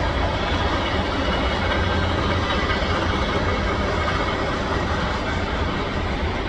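Freight train cars rolling steadily past: a constant low rumble and rush of steel wheels on the rails.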